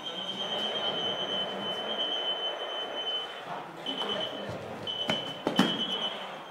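Laser tag equipment giving a steady high-pitched electronic tone that breaks off twice briefly, with two sharp knocks near the end.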